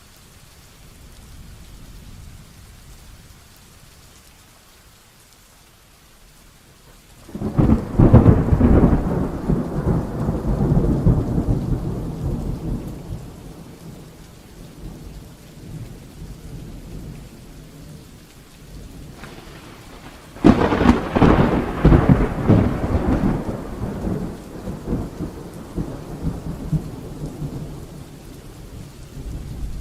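Heavy rain falling steadily through a thunderstorm, with two loud thunderclaps, one about a quarter of the way in and one about two thirds of the way in. Each clap breaks suddenly and rumbles away over several seconds.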